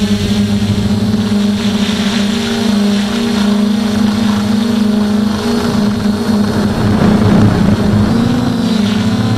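DJI F450 quadcopter's electric motors and propellers, heard close up from a camera mounted on its frame: a loud, steady buzzing hum whose pitch wavers slightly as the quad climbs and flies, bending upward briefly near the end. A rushing noise swells about two thirds of the way in.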